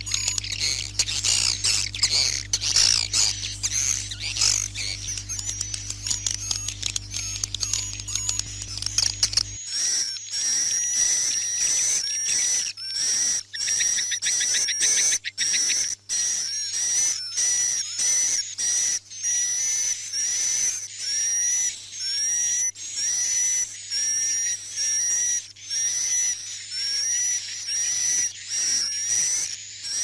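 A recording of edible-nest swiftlet calls made for a swiftlet house: the 'night lull' sound played through indoor speakers to keep the birds settled. For about the first nine seconds it is a dense twittering chorus over a low hum. Then it switches abruptly to evenly repeated high chirps, a little more than one a second, mixed with rapid clicks.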